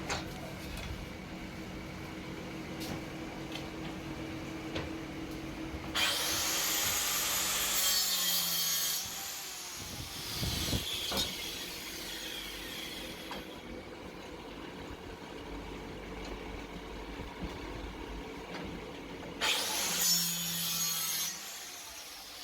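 Wood being cut with a power tool in a few bursts of several seconds each: one about six seconds in, a weaker one around thirteen seconds, and one near the end. A steady low machine hum runs between them.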